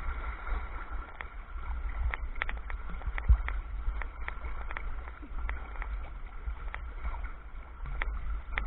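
A sea kayak moving through light surf: water sloshing along the hull over a steady low rumble, with sharp clicks and taps every fraction of a second and one heavier thump about three seconds in.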